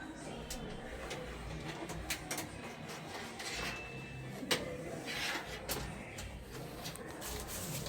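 Scattered light clicks and knocks of tools and parts being handled during repair work, with a brief faint tone about three and a half seconds in and a short hiss a little after five seconds.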